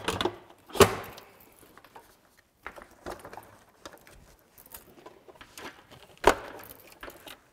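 Minn Kota MKA-32 quick-release bracket plates being seated and locked together under an Ulterra trolling motor: two sharp clunks, about a second in and near the end, with light handling rattles between.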